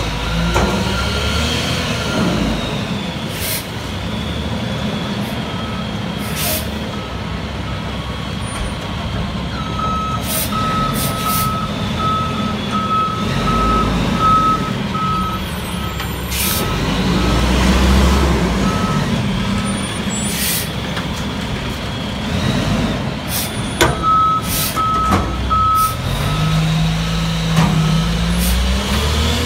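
McNeilus front-loader garbage truck working a dumpster: the diesel engine runs and revs as the hydraulic arms lift, with scattered air-brake hisses and clanks. Its backup alarm beeps steadily for about fifteen seconds while it reverses, stops, and beeps again briefly near the end as the engine revs up to lift the next bin.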